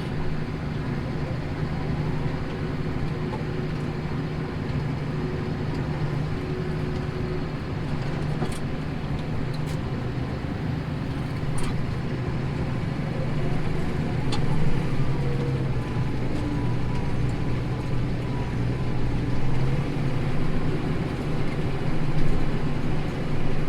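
Tractor engine running steadily under load while pulling a plough through stubble, with a few faint clicks over the hum.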